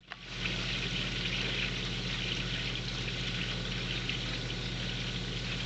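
Reef aquarium's water circulation running: a steady trickle and splash of water, over a low, steady pump hum.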